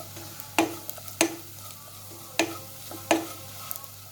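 A spoon or spatula stirring onions and ground spices in a pan on a low flame, knocking against the pan four times and ringing briefly, over a soft sizzle: the masala is being sautéed until the spices lose their raw smell.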